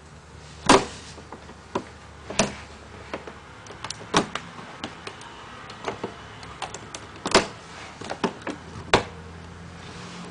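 Plastic tiles of a Rubik's Magic Master Edition folding puzzle being flipped and folded on a table: a run of irregular clicks and taps, with about five louder ones, the loudest under a second in.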